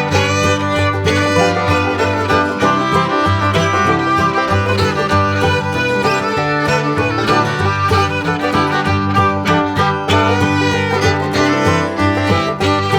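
Background music: upbeat bluegrass-style tune with fiddle, plucked banjo and guitar, and a steady rhythm.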